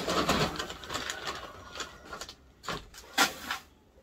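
Dry shredded beet pulp and its feed bag rustling as hands and a plastic scoop dig into the bag. Past halfway it turns quieter, with a few short knocks of the scoop.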